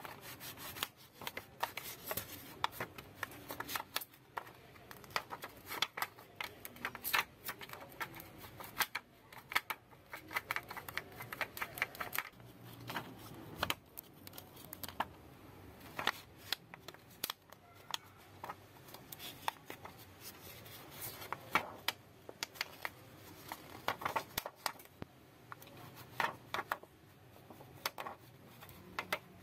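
A thin plastic card scraping, rubbing and clicking against the glass back cover of a Samsung Galaxy A5 (2016) as it is worked around the cover's edge. The clicks and scrapes are small and irregular and come all the way through, mixed with the rustle of handling.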